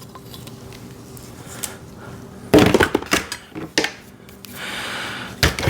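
Welding cables and their metal connectors being handled: a loud clunk about halfway through, then several lighter knocks and clicks, a short rustle, and another sharp click at the end.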